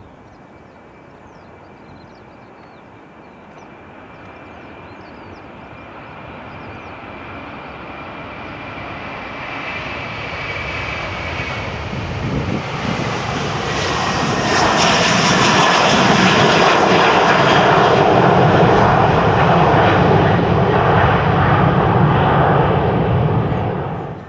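Delta Airbus A330-300 jet airliner taking off, its engine noise building steadily as it approaches and staying loud for the second half. A faint high whine slides slowly down in pitch, and the sound drops away abruptly near the end.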